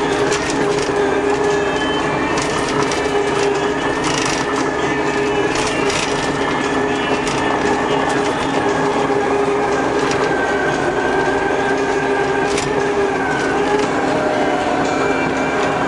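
Takeuchi TL150 track loader's diesel engine and hydraulic drive running steadily under load, with a steady whine that wavers slightly and scattered clanks and rattles.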